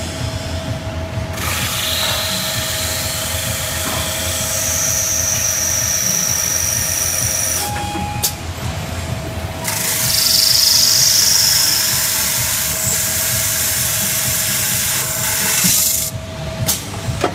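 Glass drilling machine grinding a hole through a sheet of glass: a steady motor whine under a high grinding hiss. The grinding breaks off about eight seconds in, starts again about two seconds later, and stops just before the end.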